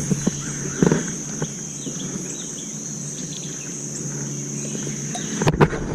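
Insects droning steadily at one high pitch. There are a few light knocks early on and a louder clatter near the end.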